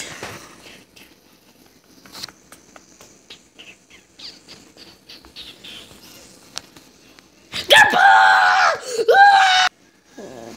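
Faint clicks and low hiss, then about seven and a half seconds in a young person's loud, high-pitched scream lasting about two seconds, in two parts with a dip in pitch between them.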